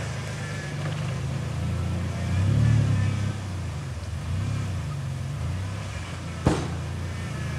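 4x4 SUV engine working the truck up out of a muddy rut, its revs rising and falling in swells, loudest about two and a half seconds in. A single sharp knock comes near the end.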